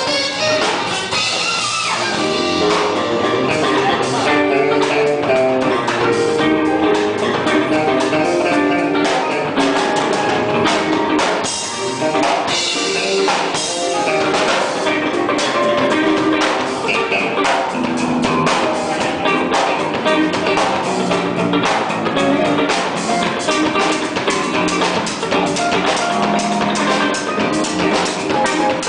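Live orchestral gospel music with a drum kit keeping a steady beat and guitar.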